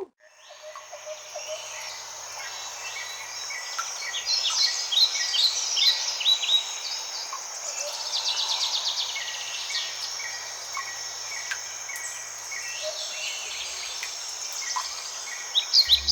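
Tropical rainforest ambience: a steady high insect drone with many bird chirps and calls over it, including a rapid trill about eight seconds in.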